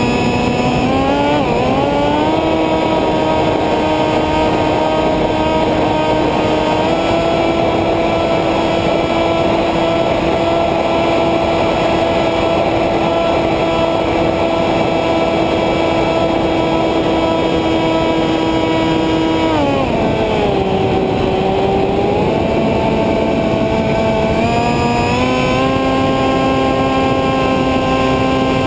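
Radio-controlled model airplane's motor and propeller running, heard from a camera on the plane with wind rushing past. The pitch rises about two seconds in as the throttle opens, holds steady, drops about twenty seconds in, and climbs again a few seconds before the end.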